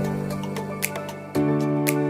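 Background music: soft sustained chords that change about every two seconds, with a light percussive click about once a second.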